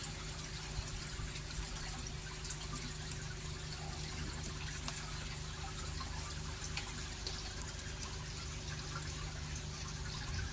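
Water trickling and dripping, with small scattered clicks and a steady low hum underneath.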